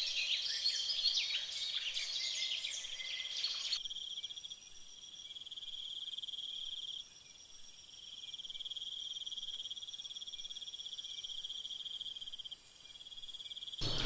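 Steady high-pitched insect drone, such as crickets make in tropical undergrowth, with short rising and falling chirps over it in the first four seconds. The drone changes abruptly a few times, dipping and coming back.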